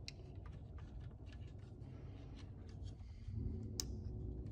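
Light clicks and rustling of hands fitting wires into the plastic cable channels of a cordless circular saw's opened housing, with one sharper click near the end.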